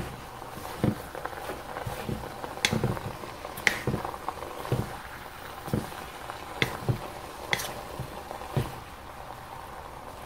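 Wooden spatula stir-frying bitter flowers and pork in a wok, with irregular knocks and scrapes against the pan about once or twice a second over a steady sizzle.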